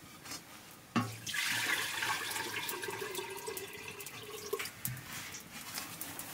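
Water pouring from a large aluminium storage vessel into a smaller metal pot, a steady splashing stream lasting about three and a half seconds. A metal clank comes just before the pour and a clunk comes just after it ends.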